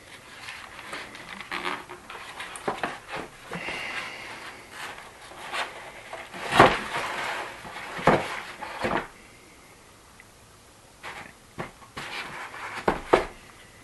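Irregular knocks and clicks of a bolt-action rifle being handled, with the loudest knock near the middle and a few more near the end.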